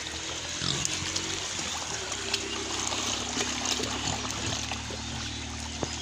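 A herd of pigs wading and rooting in shallow muddy water, with splashing and sloshing and scattered small splashes. A steady low hum comes in about two seconds in.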